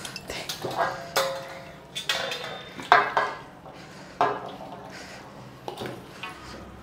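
Metal cooking pot clanking and scraping against a steel bowl's rim as curry is tipped out of it: about half a dozen sharp, ringing clanks.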